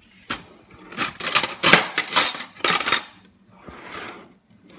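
Metal cutlery clattering and jingling as kitchen drawers are opened and the silverware is rummaged through, with a sharp click just after the start and a dense run of clinks in the middle, fading to faint rustling near the end.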